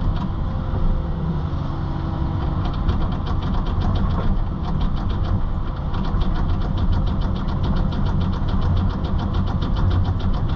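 Engine running steadily, with a fast, regular clicking that sets in about two and a half seconds in.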